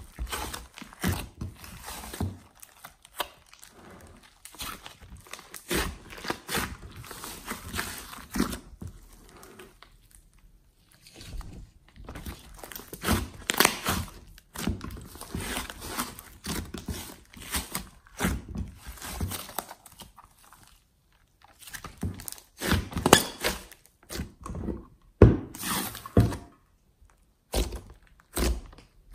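Hands kneading, folding and pressing a large mass of sticky slime in a glass dish: irregular wet squishes, crackles and sharp clicking snaps as the slime stretches and air pockets pop. It eases off twice, and the snaps are loudest near the end.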